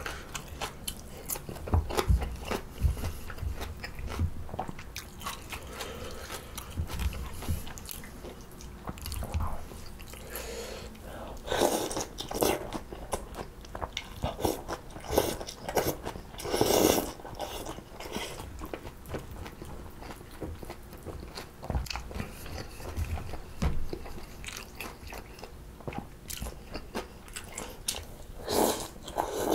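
Close-miked chewing and crunching of mulhoe, cold spicy raw-fish soup with vegetables and thin wheat noodles. There are a few louder slurps of noodles, twice near the middle and once near the end.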